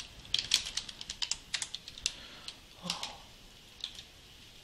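Typing on a computer keyboard: a quick run of keystrokes for about two seconds, a short pause, then a few more keystrokes near the end.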